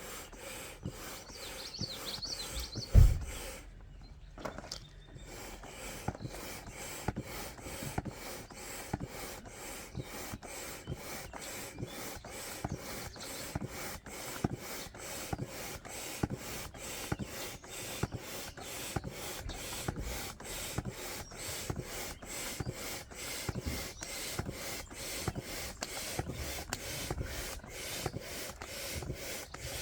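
Manual air pump inflating a boat's side tube: quick, regular rasping strokes with a short pause after a thump about three seconds in.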